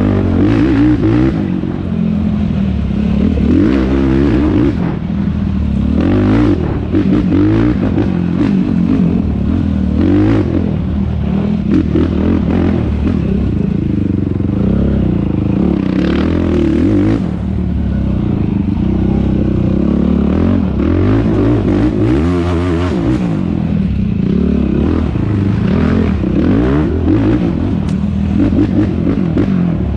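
Yamaha YFZ450R's single-cylinder four-stroke engine under hard race riding, revving up and down as the throttle opens and closes, with clattering knocks from the quad's chassis over rough ground.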